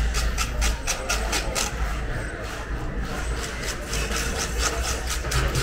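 Knife blade scraping the skin of a large cobia in quick, regular strokes, about five a second, descaling the fish, over a steady low hum.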